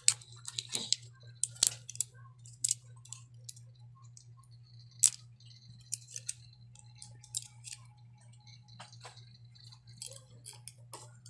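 Clear plastic vitamin packaging clicking and crackling in a child's fingers as she works the vitamin out: scattered sharp clicks, the sharpest about five seconds in. Under them runs a steady low hum.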